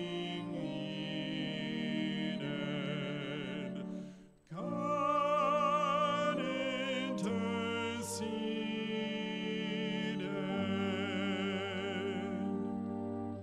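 A woman and a man singing a sung passage together, long held notes with vibrato, over steady held low accompaniment notes. There is a short break between phrases about four and a half seconds in.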